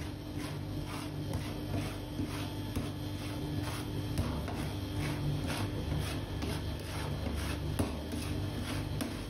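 Flat metal scraper rasping across the steel cold plate of a rolled-ice-cream pan as it spreads partly frozen Oreo ice cream mix into a thin sheet, in regular strokes about two a second. A steady low hum runs underneath.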